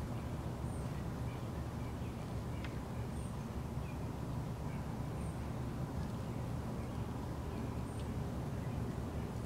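Backyard ambience: a steady low rumble, with a faint, short high chirp four times, about every two to three seconds.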